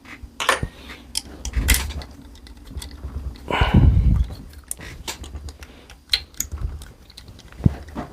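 Small metal parts and a hex key being handled: irregular light clicks and taps as the barrel retention screws go back into an air rifle, with a louder knock and rub of handling about halfway through.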